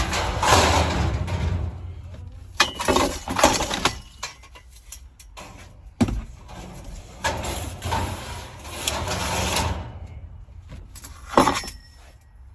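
Scrap metal being unloaded: scattered knocks and clangs of poles and grill parts, with stretches of scraping noise over a steady low rumble.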